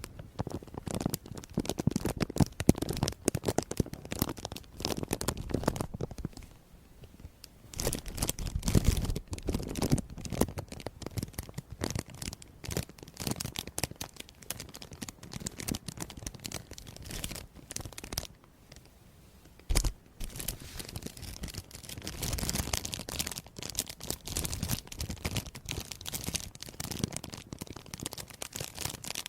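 Crisp, rapid crackling and scratching sounds made close to the microphone. It goes quieter about seven seconds in, then drops to a near pause around eighteen seconds, broken by a single soft thump about twenty seconds in.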